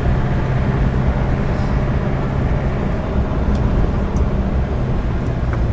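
Jeep engine running with a steady low hum under road and tyre noise, heard from inside the cabin while driving.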